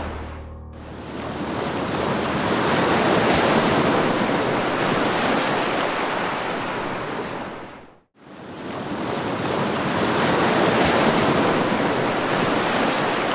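Ocean surf rushing and washing in, swelling and easing. It cuts out to silence for a moment about eight seconds in, then swells back.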